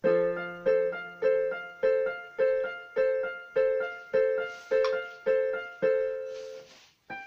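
Casio Casiotone portable keyboard in a piano sound, a chord struck over and over at a steady pace, about every 0.6 seconds, each one dying away; the last chord rings out longer.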